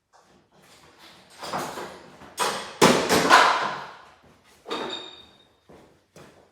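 Metal tools and parts being handled and knocked about: a series of knocks and clatters, loudest in the middle, with a short metallic ring about five seconds in.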